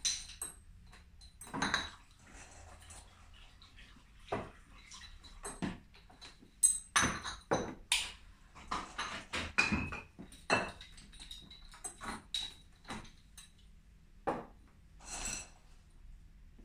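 Glass bottles and metal tools clinking and knocking as they are handled during home-brewed beer bottling. The knocks are scattered and irregular, some with a short bright ring, over a faint steady low hum.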